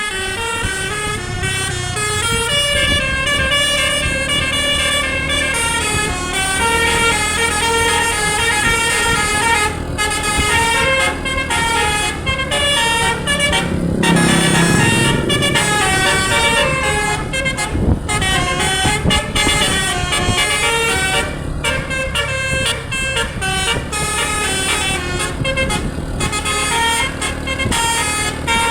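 DAV musical air horn ('telolet basuri') playing a melody of stepping, held notes without a break, over the low running of a vehicle engine.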